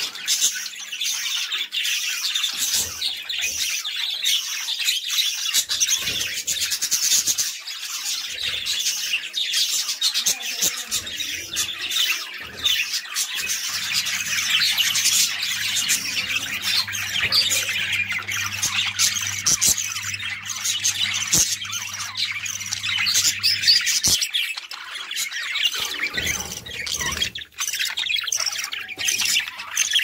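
A colony of many budgerigars calling at once, a dense, continuous chatter of chirps.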